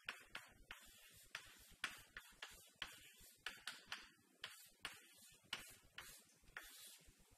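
Chalk tapping and scratching on a chalkboard as an expression is written: faint, quick, irregular strokes, several a second.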